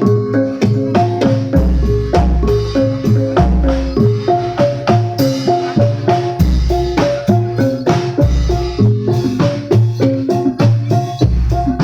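Javanese gamelan ensemble playing: bronze metallophones strike a running melody of pitched notes over deep low strokes that come about every two seconds.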